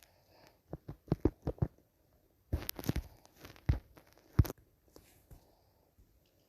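A series of sharp clicks and knocks, irregular: a quick run about a second in, a cluster near the middle, and two single louder knocks after it, then quiet.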